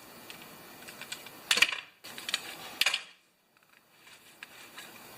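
Small metal parts of a lawn mower engine's recoil starter clicking and clinking as it is handled, with two louder clacks about a second and a half and three seconds in.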